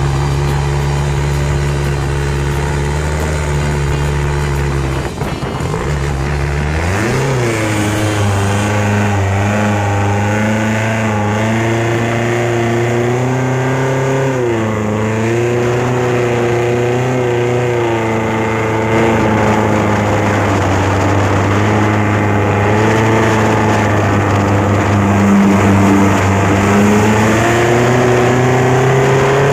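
Long-tail boat engine running loud at speed. Its pitch sags and climbs back a few times as the throttle is eased and opened again.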